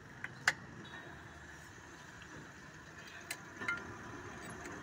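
A few sharp metal clinks from a wrench working the 18 mm bolts on a tractor's PTO oil-seal housing as they are tightened, two near the start and two more a little past the middle, over a faint steady hiss.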